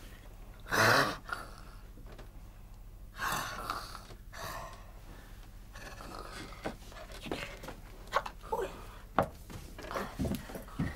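Two loud, breathy gasps about a second and three seconds in, then scattered small knocks and clicks.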